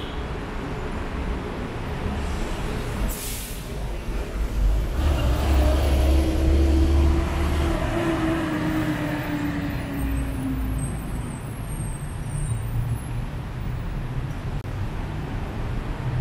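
City road traffic with a heavy vehicle passing: a deep rumble that is loudest a few seconds in, and an engine tone that slowly falls as it goes by. A short hiss sounds about three seconds in.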